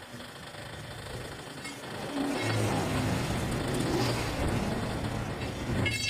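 Road vehicle noise, a rumbling hiss that gets louder about two seconds in and holds steady.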